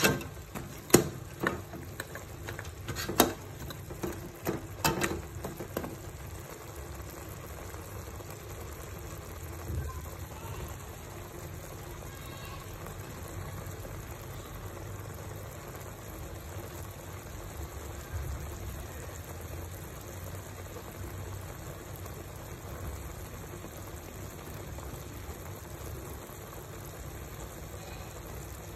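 A ladle knocks and scrapes against an aluminium pot several times in the first five seconds or so. After that, a braise of pork trotters simmers steadily, bubbling in its sauce.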